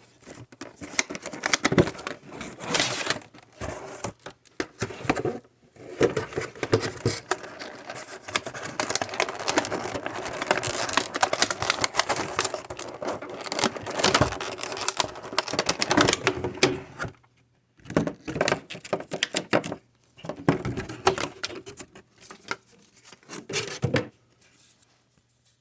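Cardboard and plastic packaging of a Pokémon card box being torn open and handled: rapid crinkling, tearing and scraping in long bursts broken by a few short pauses.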